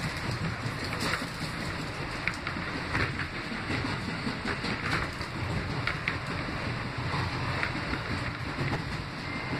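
Interior of a New York City subway R160B car running between stations: steady rumble of wheels on rail, with a few brief clicks and squeaks scattered through it.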